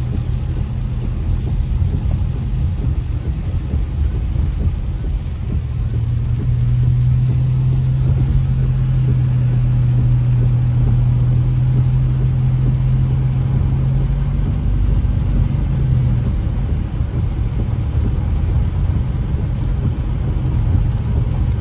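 Car driving on a rain-wet road, heard from inside the cabin: a steady low rumble of engine and tyres with a hiss of wet pavement. A low droning hum comes up about six seconds in and falls away around sixteen seconds.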